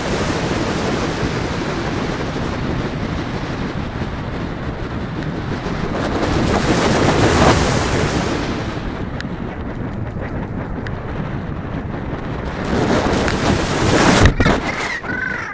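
Heavy wind rushing over the microphone of a camera carried by a flying falcon, surging louder twice as the bird speeds up. Near the end a crow caws.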